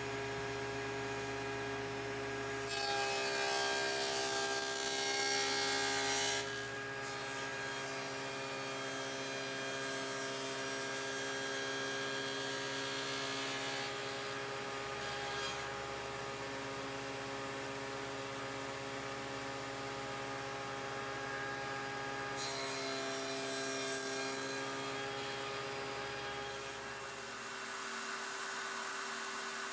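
Table saw running with a steady hum. Twice it cuts through a walnut board on a crosscut sled, each cut a louder stretch of cutting noise lasting a few seconds.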